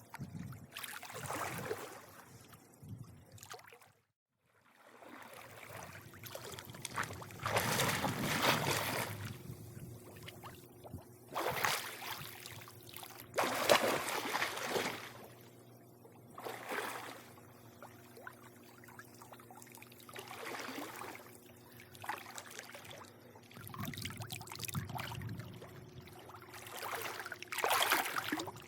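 Pool water lapping and sloshing in irregular swells every few seconds, over a faint steady hum. The sound drops out to silence briefly about four seconds in.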